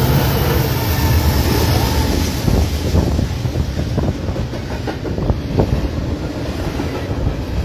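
Double-stack intermodal freight train passing close by. Its trailing diesel locomotives run with a steady low rumble for the first couple of seconds, then the container well cars roll past, their wheels clacking over rail joints.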